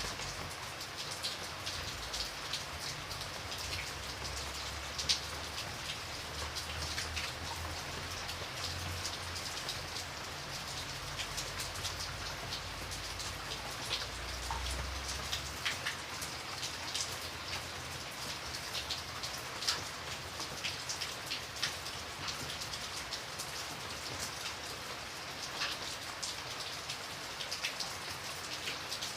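Steady rain falling, with many separate drops ticking on a surface over an even hiss. A low rumble underneath fades out about halfway through.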